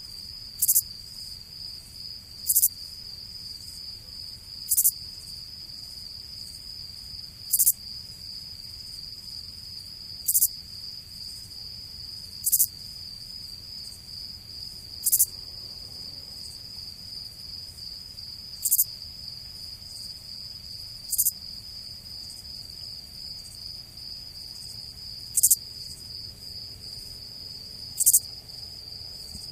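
Insect ambience: a steady, high, pulsing trill, with a short, louder and higher chirp every two to three seconds.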